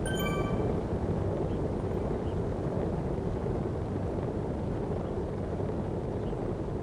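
Steady wind buffeting on the microphone over a low, constant rumble of movement. A short, high pitched beep of a few tones sounds right at the start.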